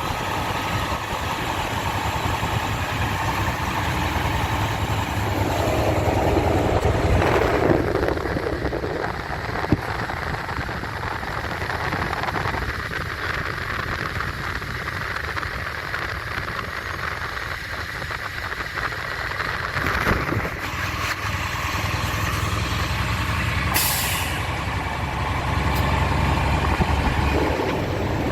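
Dump truck's diesel engine running, with several short hisses of air from its air brakes.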